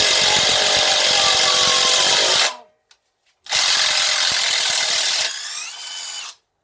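DeWalt cordless impact driver hammering a screw in, a dense rapid rattle of impacts. It stops about two and a half seconds in, starts again about a second later, runs quieter in its last second and stops near the end.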